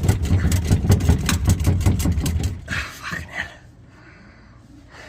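Car exhaust pipe being shaken back and forth by hand at a loosened clamp joint, rattling and knocking with a low rumble, to work the slip joint further in. The shaking stops about two and a half seconds in, followed by a short breath or sigh.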